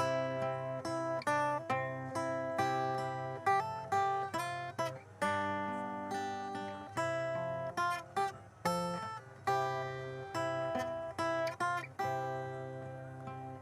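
Background music of plucked acoustic guitar, a quick run of picked notes over a sustained low note.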